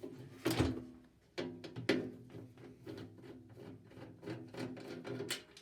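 A few sharp knocks and rattles as parts of a microwave are handled while its door comes off, over faint steady background music.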